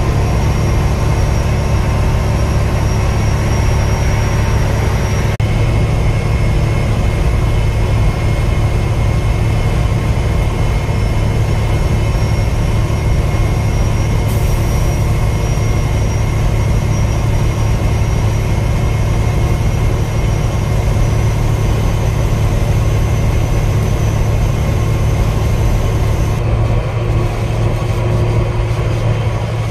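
Semi-truck's diesel engine and road noise droning steadily inside the cab while cruising at highway speed.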